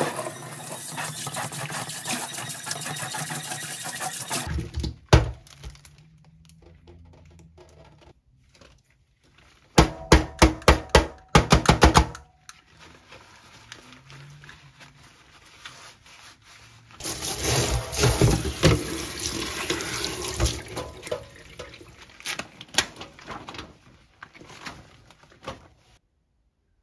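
Water from a kitchen faucet sprayer running onto a plastic basin in a stainless steel sink, cutting off about four seconds in. Later comes a quick run of about eight scrubbing strokes in the sink, then water running again with scattered knocks and clacks.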